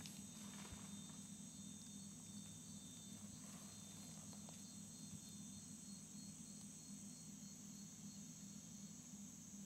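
Faint forest ambience: a steady high-pitched insect drone, with a low steady hum beneath it.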